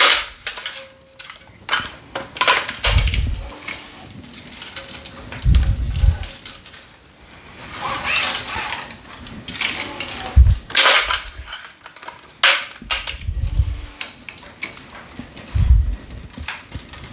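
Tennis racket being strung on an electronic stringing machine: Luxilon 4G Rough polyester string drawn hissing through the grommets, clamps clicking and knocking, and a few short low rumbles while tension is pulled on the main strings.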